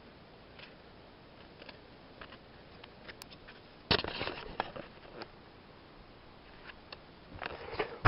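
Hands trimming and cleaning a freshly picked mushroom with a knife close to the microphone: faint scraping and small clicks, with a louder burst of crackling handling noise about four seconds in and again near the end.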